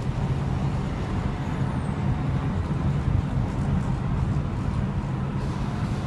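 Steady low drone of a car's engine and road noise, heard from inside the car as it drives slowly along.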